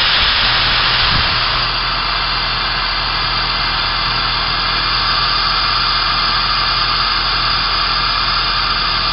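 Rx11-flush and nitrogen blown through an old copper refrigerant line set, a loud steady hiss of gas rushing out of the open pipe end. The hiss drops a little in level about two seconds in.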